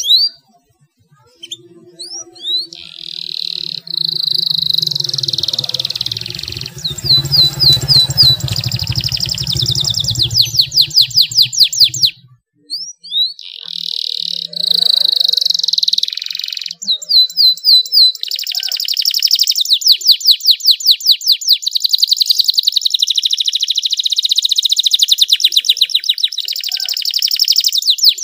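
Canary singing long phrases made of fast rolling trills of rapidly repeated notes, with a brief pause a little past the middle. A low hum sits underneath during the first half.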